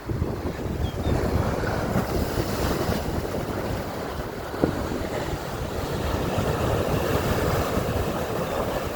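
Strong wind buffeting the microphone over the wash of sea waves breaking at high tide, with one brief knock about halfway through.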